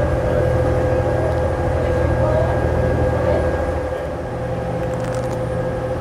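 Ferry engines running with a steady low drone and a constant higher hum.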